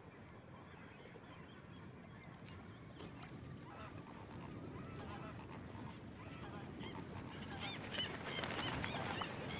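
A flock of flamingos calling: many short overlapping calls over a steady background of the flock, beginning about three seconds in and slowly growing louder.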